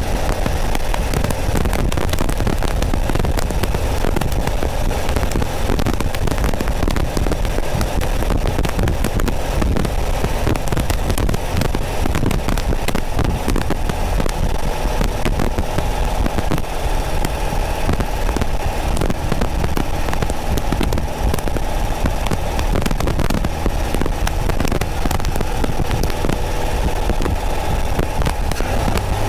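Porsche 914's air-cooled 2.0-litre flat-four engine running steadily as the car drives at road speed, picked up by a microphone behind the rear window. Wind noise and crackling static run over it throughout.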